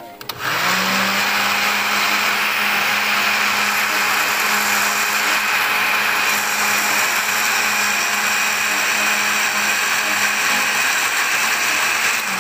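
Electric countertop blender switching on and spinning up about half a second in, then running steadily as it grinds peanuts into a thick peanut-butter paste, stopping right at the end.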